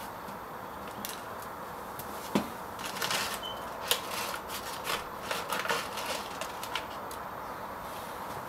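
Scattered sharp knocks and scrapes of a hard object handled on paving stones, loudest a little over two seconds in and again just under four seconds in, over steady outdoor background noise.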